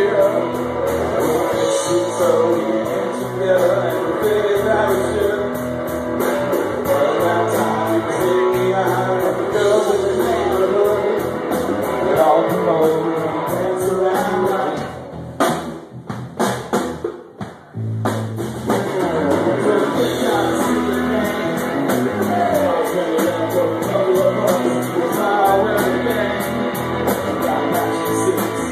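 Live rock band playing: a singer over electric guitars and a drum kit. About fifteen seconds in the sound dips and cuts in and out for a few seconds, then the band comes back at full level.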